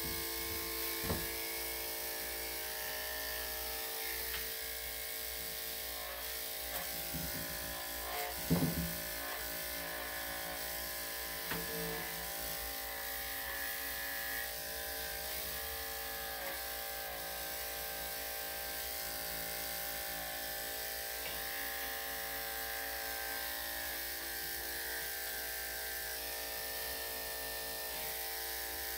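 Electric dog grooming clippers fitted with a #7 blade running with a steady hum as they shave a small dog's coat. There is a brief louder sound about eight and a half seconds in.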